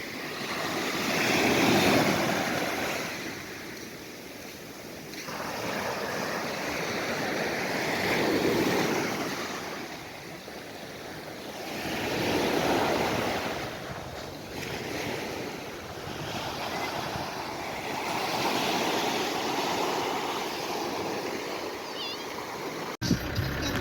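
Sea waves breaking on the shore, the surf swelling and falling back in slow surges every four to six seconds. The sound cuts off abruptly near the end.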